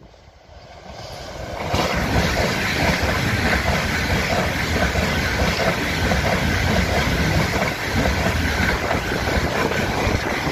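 Deutsche Bahn ICE 4 (class 412) high-speed electric train approaching and passing close by. The noise swells over the first two seconds, then holds as a steady loud rush of wheels and air as the carriages go past.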